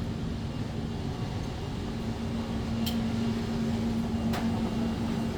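Steady low hum and rumble of an indoor store's ventilation, with a faint steady drone and two brief sharp clicks.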